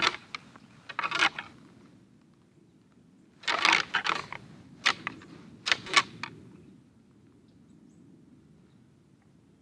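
Rattling antlers clashed and ground together to imitate two bucks sparring: a quick run of sharp clacks, then a longer grinding stretch with more clacks about three and a half seconds in, ending a little past halfway.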